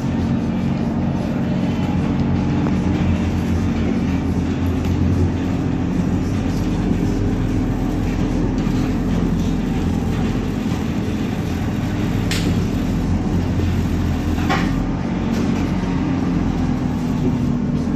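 ZiU-682 electric trolleybus running, a steady low hum and rumble, with two sharp clicks about two seconds apart some two-thirds of the way through.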